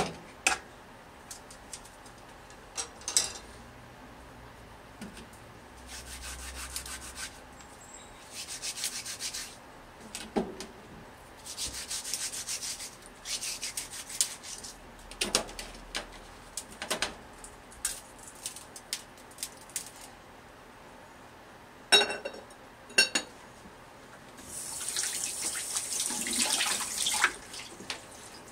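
Cucumbers rubbed by hand against a stainless steel tray, giving a scraping hiss in several spells of a few seconds each, with light clicks and knocks from handling in between.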